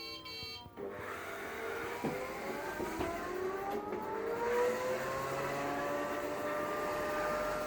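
Robot vacuum cleaner running, its motor whine rising slowly in pitch over a few seconds and then holding steady over the hum of the machine.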